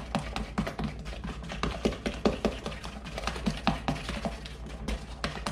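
A spoon or spatula clicking and knocking against a mixing bowl as muffin batter is stirred: a quick, irregular run of light taps.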